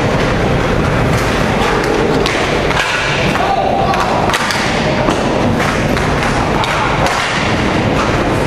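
Game noise: irregular thumps and knocks over a steady din, with voices in the background.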